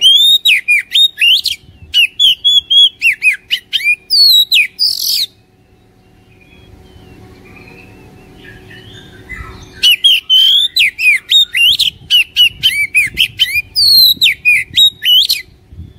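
Oriental magpie-robin singing: loud, rapid strings of sharp whistled and trilled notes in two bouts of about five seconds each, with a pause of about four seconds between them.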